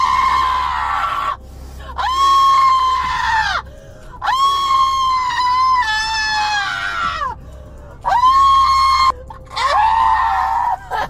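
A woman screaming in long, high-pitched wails: five in a row, each one to three seconds long, with short breaks between them.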